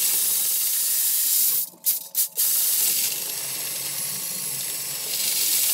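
Rotary chimney-sweep brush on flexible rods, spun from below, scrubbing the inside of a metal stovepipe: a loud, steady scraping hiss over a low motor hum as it scours loose soot and creosote. It cuts out briefly a few times a little under two seconds in, then starts again.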